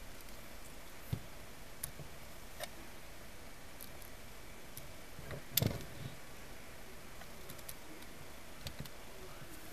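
Bosch PHO 3100 electric planer being handled while switched off: scattered clicks and taps from its plastic housing and the depth-adjustment knob, with one louder knock a little past halfway.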